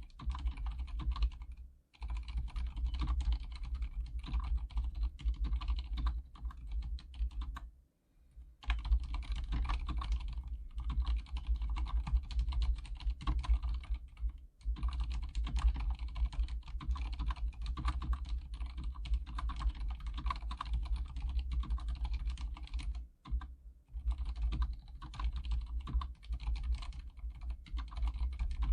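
Fast, continuous typing on an Archon K79 full-size mechanical keyboard with silent red switches (linear switches with dampened keystrokes), a steady patter of key presses broken by short pauses about two, eight and twenty-three seconds in.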